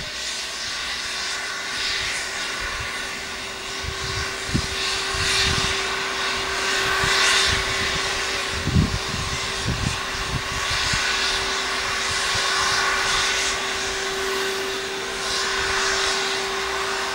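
Distant narrow-gauge steam train running across the Cob: a steady rushing noise with a faint held hum throughout, and wind buffeting the microphone now and then.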